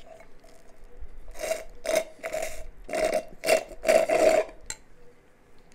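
A thick smoothie being slurped through a straw: about six short sucks, roughly two a second, from about a second and a half in to about four and a half seconds.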